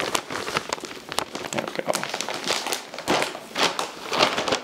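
Plastic bag of peat-moss potting mix crinkling and rustling as soil is poured from it into a plant pot and the bag is handled, an irregular run of crackles.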